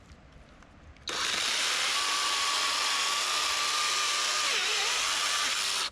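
KEBTEC DLA-0017 cordless battery chainsaw running: its motor and chain start suddenly about a second in with a steady high whine, dip briefly in pitch near the end, and stop suddenly.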